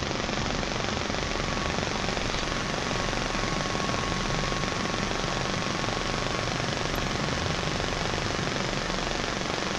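Cessna light aircraft's piston engine and propeller heard from inside the cabin: a steady, unbroken drone with a faint thin tone held through it.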